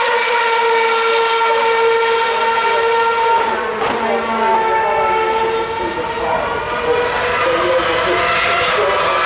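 Formula One car's 2.4-litre V8 engine running at steady, held revs after slowing, with a second car's engine note overlapping for a few seconds in the middle; the revs rise slightly near the end.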